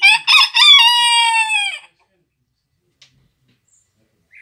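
Bearded d'Anvers bantam rooster giving one loud crow: a short broken opening, then a long held note that falls away at the end, under two seconds in all.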